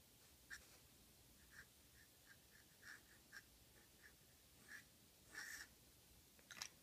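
Faint, intermittent scratching of a fine, flexible fountain-pen nib (a Namiki Falcon with a Spencerian grind) on paper, as it writes script in short strokes, with one longer stroke about five and a half seconds in.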